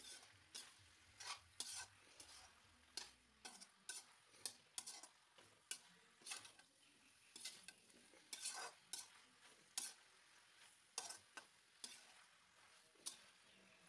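A spatula stirring and scraping chopped potatoes and eggplant through masala in a metal kadhai: quick, uneven scrapes about two a second.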